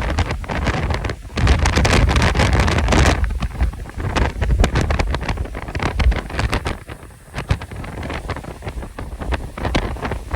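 Strong Santa Ana wind gusts buffeting the microphone: a heavy rumble with sudden gust spikes, strongest for the first three seconds, easing about seven seconds in, then building again near the end.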